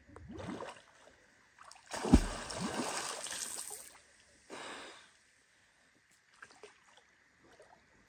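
Water splashing and a man's loud breathing as a diver surfaces in a river: a short splash, then a louder stretch of splashing and breath lasting about two seconds that opens with a sharp thump, and one more brief splash.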